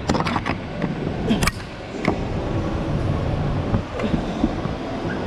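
Rubbing and rustling of a body-worn camera's microphone against the climber, a steady noisy rumble, with a quick run of sharp clicks and knocks at the start and two more about one and a half and two seconds in.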